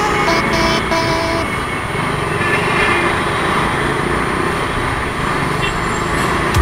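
Road traffic noise recorded from a moving motorcycle among cars and trucks, a steady rush throughout. Several short vehicle horn toots sound in the first second and a half.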